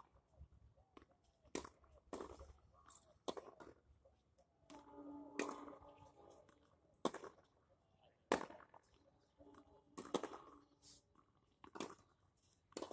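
Tennis ball hits during a rally: sharp pops of balls struck by racquets and bouncing on a hard court, about one a second at an uneven pace.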